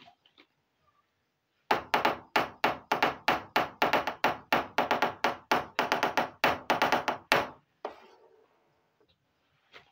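A quick, even run of sharp tapping knocks on a hard surface, about four a second, starting a couple of seconds in and stopping abruptly about six seconds later.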